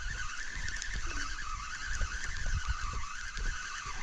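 Spinning fishing reel being cranked to bring in a hooked fish: a steady whirring that wavers up and down in pitch, with wind buffeting the microphone.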